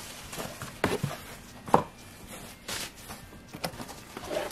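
A cardboard box being opened and handled: three sharp knocks, with a brief rustling scrape between the second and third.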